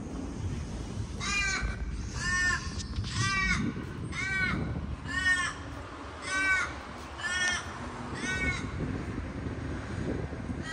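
A crow cawing eight times in a row, about one call a second, each call short and arched in pitch.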